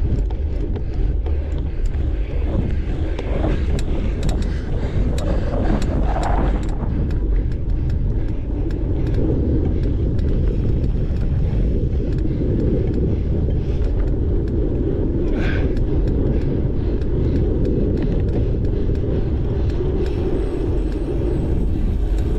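Wind rumbling over the on-board camera microphone while a cyclocross bike rides fast over dirt, its tyres and frame giving a constant rattle of small clicks and knocks.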